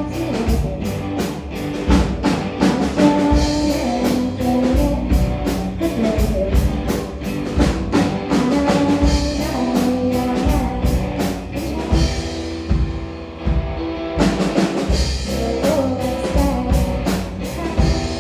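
Rock band playing: drum kit keeping a steady beat under electric guitar and bass. The cymbals and drums drop out for about two seconds past the middle, then come back in.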